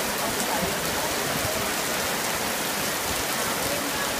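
Heavy rain falling steadily, a dense even hiss of drops on surfaces.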